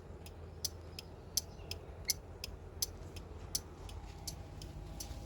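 Old scooter engine, restarted after 16 years standing, running with a low steady hum and sharp ticks about three times a second, somewhat uneven: the strange noise it makes.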